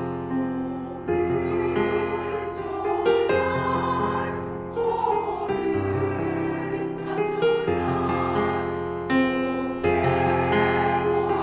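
Korean women's choir singing together, holding long notes that change every second or so, over a low instrumental accompaniment.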